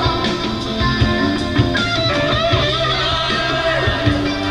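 Live rock band playing: a Stratocaster-style electric guitar plays a lead line with bent notes over drums and bass.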